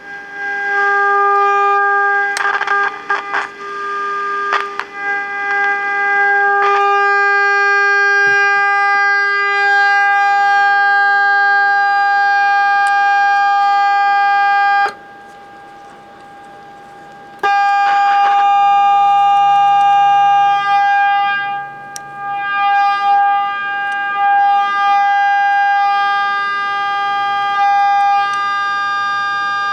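Steady buzzy test tone with many overtones from a Becker Europa car radio's speaker, as a 10.7 MHz signal-generator signal is injected into its IF stage. It plays loudly, showing the IF section is working. A few clicks come in the first seven seconds, and the tone cuts out for about two and a half seconds about halfway through.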